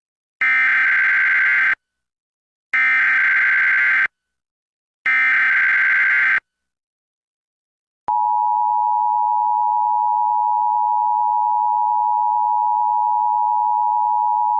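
Emergency Alert System SAME header: three identical bursts of digital data screech, each about a second and a half long with a second's gap between them, encoding a Required Monthly Test. About 8 seconds in, the steady two-tone EAS attention signal begins.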